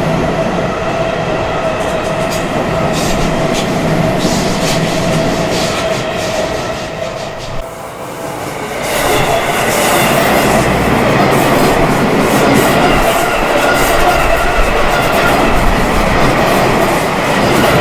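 Seibu Haijima Line electric train running past a level crossing, its wheels clattering over the rail joints, with the crossing's warning bell ringing. The train noise dips briefly and grows louder about nine seconds in.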